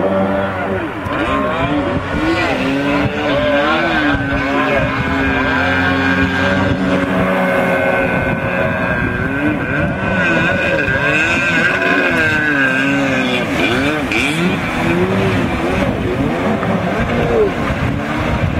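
Stand-up jet ski engine revving up and down over and over as the craft carves turns, its pitch rising and falling in repeated swoops over a hiss of water spray.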